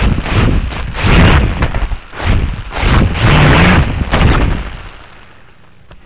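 Small SS360 stunt quadcopter's motors and propellers throttled up in repeated short bursts, heard very close through the camera mounted on the drone's underside, with prop wash blasting the microphone. Each burst carries a motor pitch that rises and falls, and the bursts stop about four and a half seconds in.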